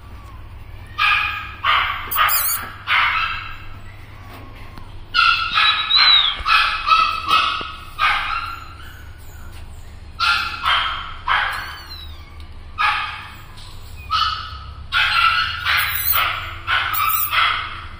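Young animals crying: short, high-pitched calls in clusters of several at a time, with pauses of a second or two between clusters, over a steady low hum.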